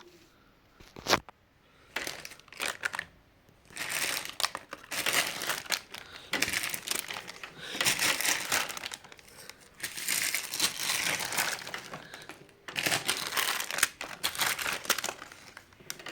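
Plastic crinkling and rustling in several bursts a second or two long, with a sharp click about a second in: hands handling LEGO pieces and plastic during a build.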